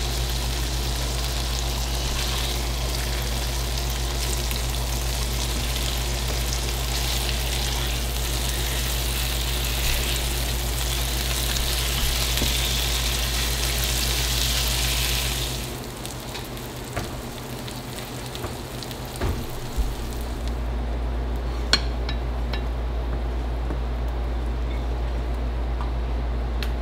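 Rock bass fillets sizzling in melted butter in a nonstick frying pan, a steady hiss that stops abruptly about halfway through. After it a few sharp clinks of a spatula against the pan and plate as the fillets are lifted out, over a steady low hum.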